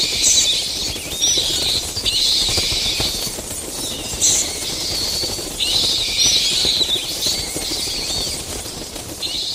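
Sound effect of a flock of bats: fluttering wingbeats in repeated flurries, with short high squeaks, over a low rumble.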